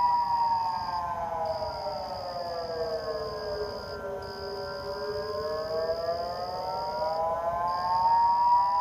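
Outdoor civil defense warning siren sounding a slow wail, several tones at once: the pitch falls over about four seconds, then rises back over the next four. 911 dispatchers believed the siren was malfunctioning.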